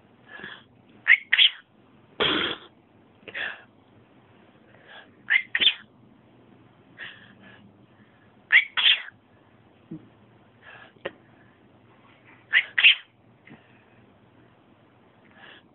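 Pet cockatiel making a string of short, sharp sneeze-like sounds, many in quick pairs, one to two seconds apart, with a longer hoarse burst about two seconds in.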